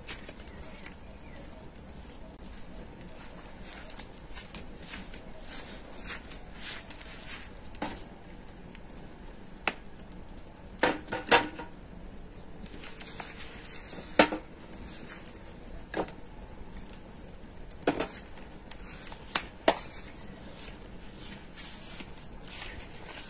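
Firewood burning in a metal mangal, crackling with scattered sharp pops. A few louder knocks and clacks come through the middle and later part.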